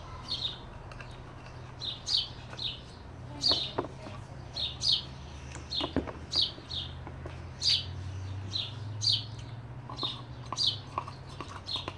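A small bird chirping over and over: short, high chirps falling in pitch, about two a second. A couple of knocks are heard about a third and halfway through.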